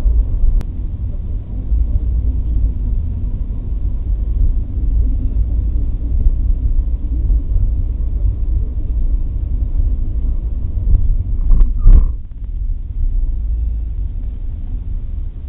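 Steady low rumble of a car's engine and tyres, heard from inside the cabin while driving. A brief louder sound cuts in about twelve seconds in.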